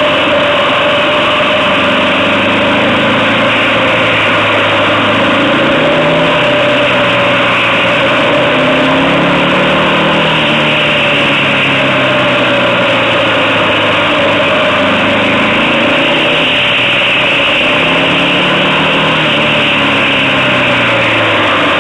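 Motorcycle engine running on the move, its pitch rising and falling several times as it accelerates out of and slows into bends, under a steady rush of wind noise.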